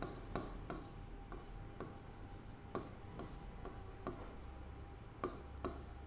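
Pen writing on an interactive whiteboard's screen: light, irregular taps and scratches as letters are written stroke by stroke.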